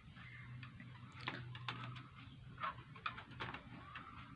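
Scattered light clicks and taps, about half a dozen, of small parts and tools being handled while a laptop is taken apart.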